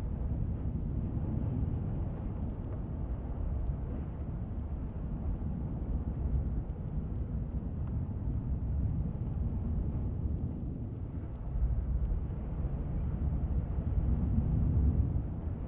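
A steady, deep rumble of water-like noise, an underwater ambience with no clear pitch. It swells slightly near the end.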